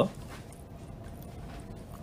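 Steady low background hum of the room with a few faint clicks; no distinct event.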